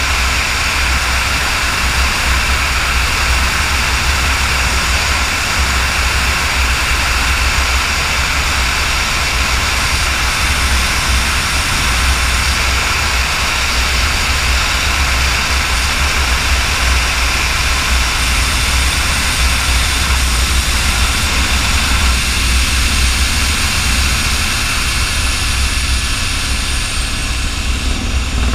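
Airbus AS350 helicopter in flight: its single turboshaft engine's steady whine over low rotor noise, loud and unbroken.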